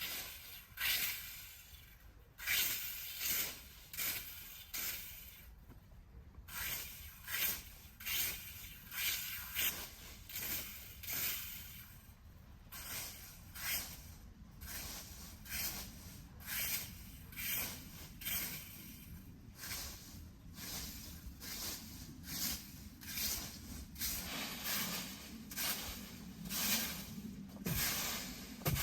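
Repeated scraping strokes, about one a second and irregular, each a short rasping hiss.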